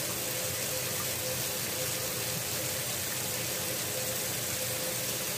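Pots of water boiling on the stovetop: a steady, even hiss with a faint steady hum under it.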